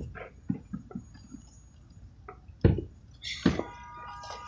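Fireworks going off: two heavy booms, the first nearly three seconds in and the second under a second later, followed by a brief high steady tone.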